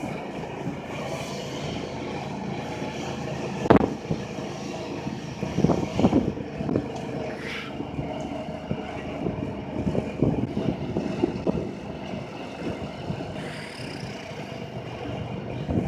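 An engine running steadily, with several sharp knocks and thuds over it: about four seconds in, around six seconds, and again near ten and eleven seconds.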